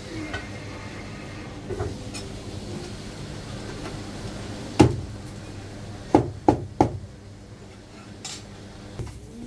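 Chinese cleaver chopping marinated goose on a cutting board: one sharp chop about five seconds in, then three quick chops a second later, over a steady low kitchen hum.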